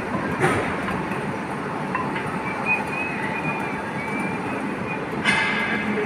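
Steady mechanical noise of heavy workshop machinery during wheelset bearing fitting. There is a knock about half a second in and a short metallic ring about five seconds in.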